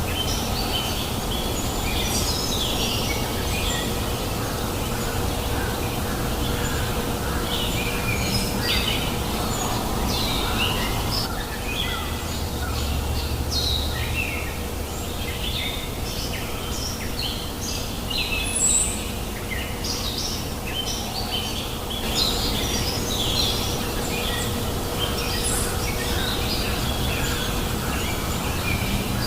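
Many small birds chirping and twittering in quick short calls, over the steady rush of a flowing river.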